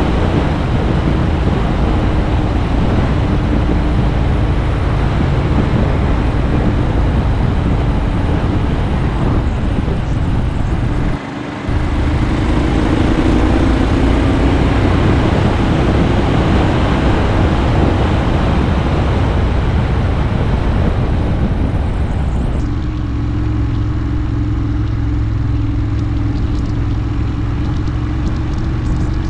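Ducati Monster R's V-twin engine running at road speed under heavy wind rush, heard from a camera mounted on the bike, with a brief dip about eleven seconds in. Near the end the wind eases as the bike slows, leaving a steadier, lower engine note.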